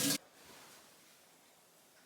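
Water running from a kitchen tap into the sink, cutting off abruptly a moment in, then faint room tone.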